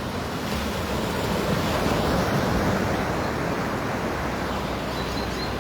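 Sea surf washing onto a beach, a steady rush that swells about two seconds in and then eases off.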